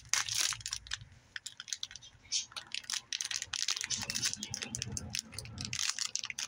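Plastic wrapping of a small Play-Doh packet crinkling and crackling in quick, irregular clicks as fingers peel it open and work the modelling clay out of it.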